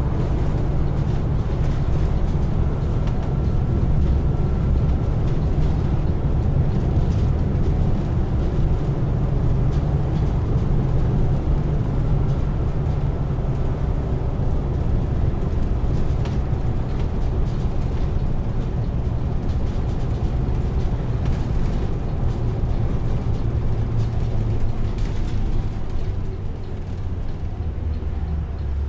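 Diesel engine running steadily with a continuous low rumble, easing off slightly near the end.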